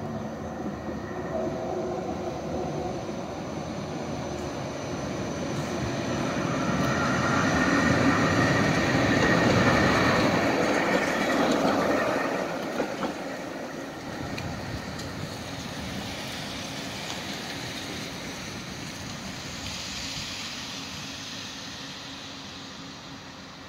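Tram passing close by, with the noise of its wheels on the rails and its running gear. It builds to its loudest a third to halfway through, then fades steadily as the tram moves away.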